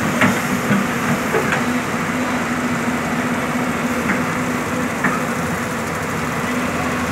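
Hydraulic excavator's diesel engine running steadily while it digs, with a few sharp knocks from the work.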